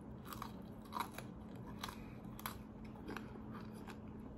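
Close-up mouth sounds of biting and chewing crunchy pickled baby corn: a handful of short, crisp crunches at irregular intervals.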